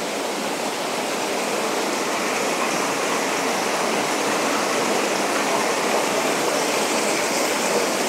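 Small waterfall splashing down over rocks: a steady, even rush of water.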